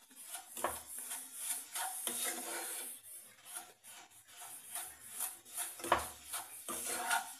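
Wooden spatula scraping and stirring a dry, crumbly mixture of roasted gram flour, mawa and powdered sugar around a pan in repeated rubbing strokes, with one sharper knock about six seconds in.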